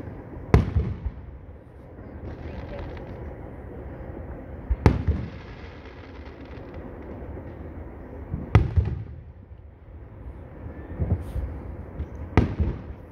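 Aerial fireworks shells bursting overhead: four loud bangs about four seconds apart, each trailing off in a rolling echo, with a couple of smaller pops shortly before the last one.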